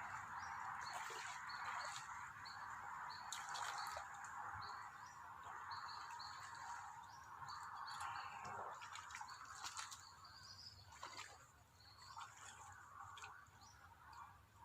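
Water trickling and dripping, with scattered small splashes. Behind it, short high chirps repeat every fraction of a second over a steady high hum.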